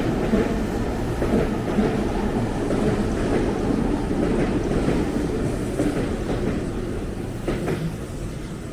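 A train running past on the track, its noise slowly fading toward the end.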